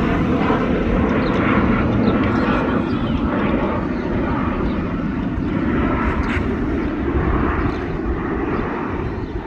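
Jet airliner engines: a loud, steady rush that slowly fades.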